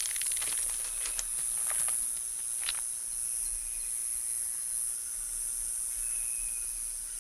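Quiet outdoor ambience: a steady high buzzing of insects, with a few faint short chirps and some light clicks.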